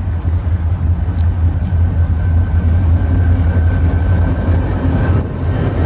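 EMD diesel locomotives of a short CSX freight train running under power and accelerating, a steady low rumble mixed with wind buffeting the microphone. A faint steady whine rises in about a second and a half in and fades near the end.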